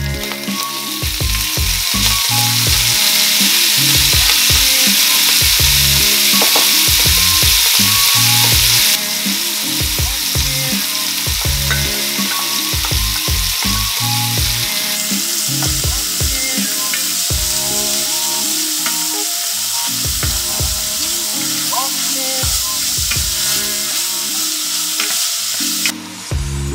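Ground pork sizzling loudly as it fries in hot oil in an enamelled cast-iron pot, stirred and scraped with a wooden spoon. The sizzle drops abruptly in level about a third of the way in and carries on steadily.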